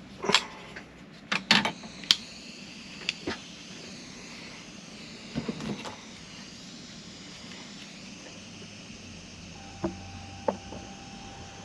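Scattered clicks and knocks of tools and parts being handled on a workbench, several in quick succession at first, a few more midway and two near the end. A faint steady tone and low hum begin about three-quarters of the way through.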